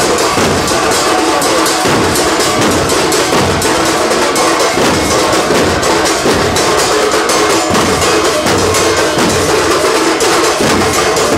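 A group of large double-headed drums beaten with sticks, many together, in a loud, fast, unbroken rhythm.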